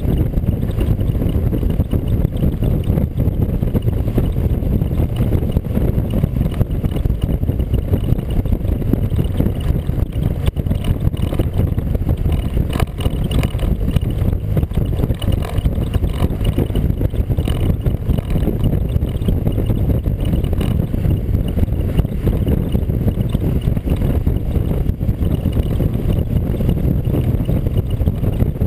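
Steady low rumble of wind buffeting a vehicle-mounted camera's microphone, mixed with road noise from a vehicle driving at speed.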